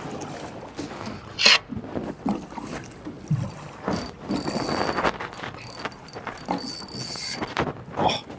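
Choppy water slapping and knocking against the hull of a small fishing boat in irregular splashes. A thin high whir comes in twice in the middle.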